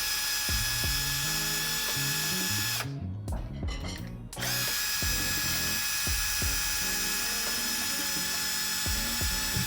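Cordless drill driving a screw into wood, its motor whining steadily; it stops for about a second and a half a few seconds in, then runs again.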